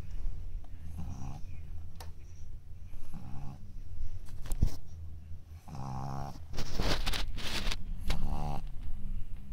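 A four-month-old pug puppy snoring in its sleep, one short pitched snore every two to three seconds. A louder, noisier stretch comes about two-thirds of the way through.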